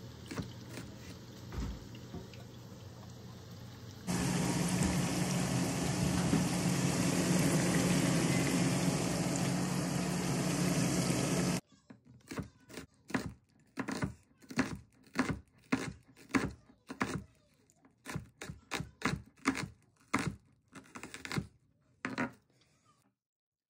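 A steady rushing noise fills the first half, getting louder about four seconds in and cutting off abruptly near the middle. Then a kitchen knife slices through a red onion onto a plastic cutting board in a run of sharp chops, about two to three a second.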